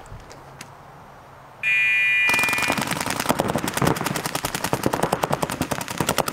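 A start buzzer sounds once with a held electronic tone about a second and a half in, signalling the start of the point. Then several paintball markers open fire in rapid strings, many shots a second, and keep going.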